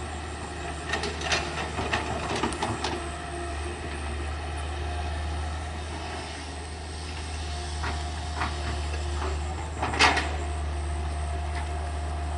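CAT 320D hydraulic excavator's diesel engine running steadily as the machine works, with a cluster of sharp metallic knocks and clanks about one to three seconds in and one loud knock about ten seconds in from the arm and bucket digging into the bank.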